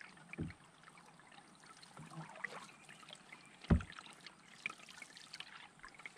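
Canoe paddling on calm water: soft splashes and water dripping from the paddle strokes. A single dull thump a little over halfway through is the loudest sound.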